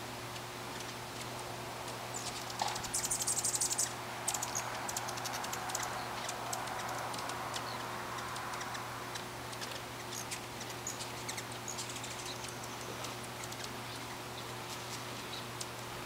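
Hummingbirds at a feeder giving short, high chip calls, with a rapid chattering run of chips about three seconds in and single chips scattered after it, over a steady low hum.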